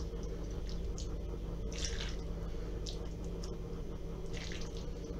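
A spoon scooping mayonnaise-dressed Olivier salad out of a steel pot onto a plate: a few soft scoops, over a steady low hum.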